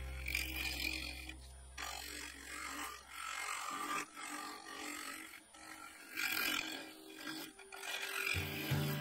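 A low music drone fades out over the first few seconds, leaving a scraping hiss that comes in uneven surges: a lathe tool cutting the spinning resin egg blank. A new music track with a low, pulsing beat starts near the end.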